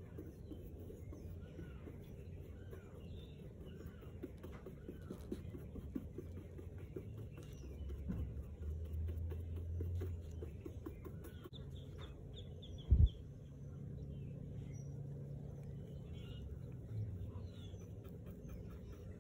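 Small birds chirping in the background, with light ticks and taps of a small paintbrush working on a leather bag. One dull thump about thirteen seconds in is the loudest sound, and a low hum comes and goes.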